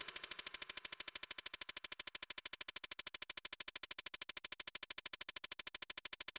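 Electronic music: a fast, even pulsing tone, about twelve pulses a second.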